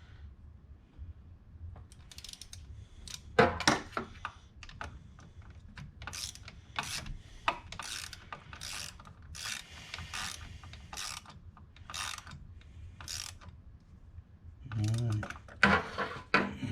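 Hand socket ratchet clicking in short repeated strokes, about two a second, as the thermostat housing bolts are tightened down.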